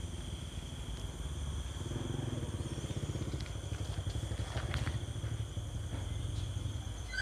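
Night insects giving a steady high-pitched trill, over a low rumble that swells in the middle and then fades.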